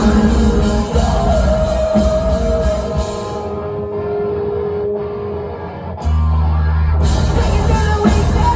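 Live post-hardcore band playing loud through a club PA, heard from within the crowd: electric guitars and drums with a held high note near the start. The top end thins out for a few seconds, then about six seconds in a heavy bass-and-drum section comes in.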